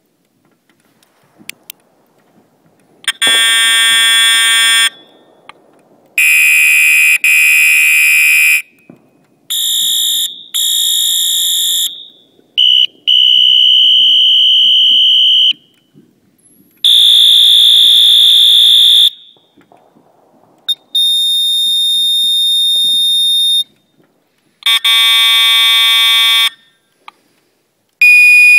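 Fire alarm horns and electronic sounders from Edwards, Gentex and Wheelock are set off one after another in short bursts of one to three seconds, about nine in all, with brief pauses between. Some bursts are buzzing horn tones and others are a steady piercing high tone.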